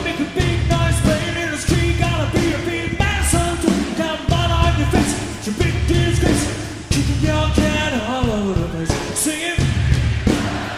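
A rock song with a singing voice over drums and bass guitar, with a steady beat.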